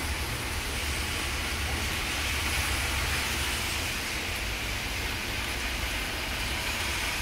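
Steady hiss of rain and traffic on a wet city street, with a continuous low rumble underneath.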